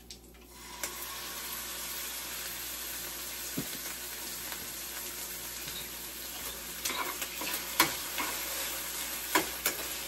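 Ground-beef taco meat sizzling steadily in a frying pan as tomato sauce goes in; the sizzle comes up about half a second in. From about 7 s in, a metal fork clicks and scrapes against the pan as the meat is stirred.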